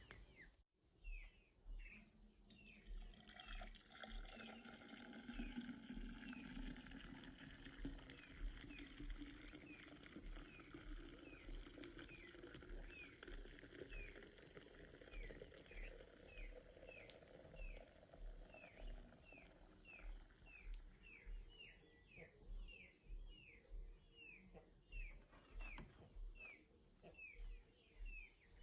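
Liquid pouring into a container, its tone rising steadily as it fills, then stopping about two-thirds of the way through. Throughout, a bird gives a short falling chirp about twice a second.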